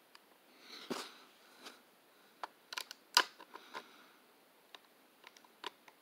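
Scattered small clicks and taps of plastic and die-cast toy truck parts being handled and fitted by hand, the sharpest click a little after three seconds, with a short breathy rustle around one second.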